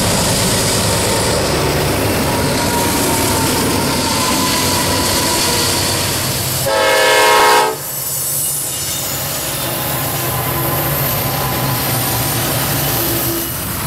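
Diesel freight locomotives and their cars passing close by, with a steady rumble of engines and wheels on the rails. About seven seconds in, a locomotive horn gives one short blast of about a second, the loudest sound.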